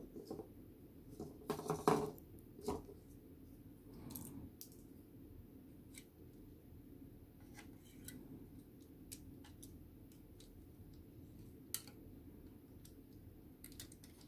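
Light clicks and taps of a plastic scale model truck being handled and turned in the hands, its loose parts knocking against each other. A short cluster of louder knocks comes about two seconds in, and a single sharp click near the end.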